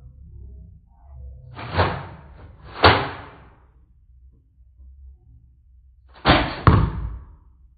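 Nerf foam-dart blaster firing: four sharp shots, two about a second apart, then two in quick succession about six seconds in.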